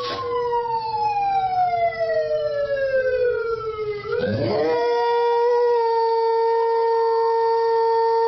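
A dog howling in long drawn-out notes, two wailing voices overlapping. One howl slides slowly down for about four seconds while the other holds steady. About four seconds in it swoops back up, and both then hold steady.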